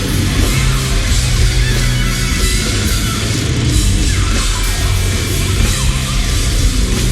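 Live hard-rock band playing an instrumental passage, electric guitar over bass and drums, as heard in the lead singer's stage monitor mix.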